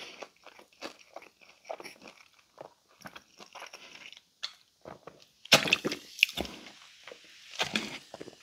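Close-miked chewing of a crisp Pizza Hut Melt: a run of small crunchy bites and mouth noises, with a louder stretch of mouth sounds a little over halfway through.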